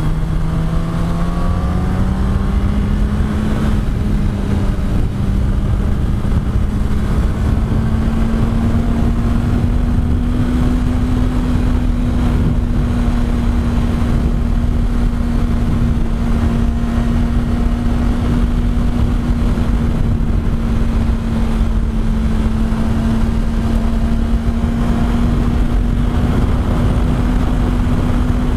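Yamaha R1's inline-four engine revving up for about three seconds, then holding a steady cruise, with heavy wind rush over the microphone.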